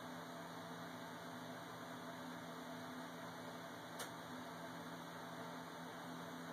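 Steady low hum and hiss of background noise, broken once by a brief click about four seconds in.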